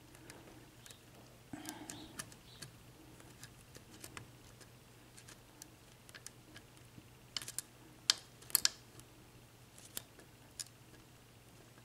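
A lock pick and tension wrench working the pins of a re-pinned Sargent six-pin lock fitted with spool and serrated pins: scattered light metallic clicks and scrapes, with a louder run of clicks about two-thirds of the way through.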